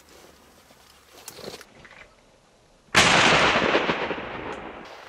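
A single shotgun shot about three seconds in, sudden and loud, its echo fading away over about two seconds.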